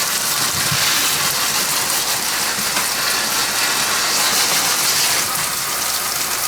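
Kitchen tap running steadily, the water splashing over mushrooms being rinsed by hand.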